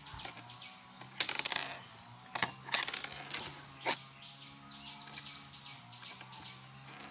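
Small hard plastic objects, a pencil sharpener and a pen, clicking and rattling on a tabletop as a kitten bats and chews at them. There are several quick bursts of clatter in the first four seconds, the loudest near three seconds in.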